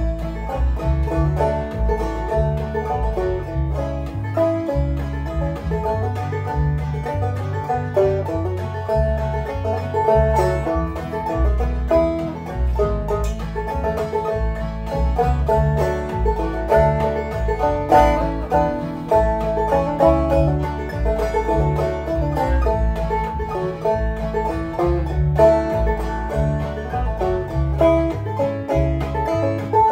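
Deering Vega Little Wonder banjo played clawhammer style in the key of A, standard tuning, a steady run of plucked notes. A Band-in-a-Box backing track carries a bass line underneath.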